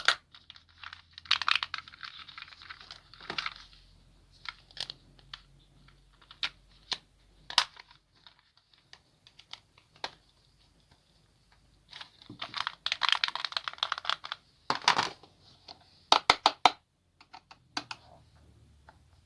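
Packaging being handled: irregular plastic clicks and taps, with two longer stretches of crinkling and a quick run of clicks a little after the second stretch.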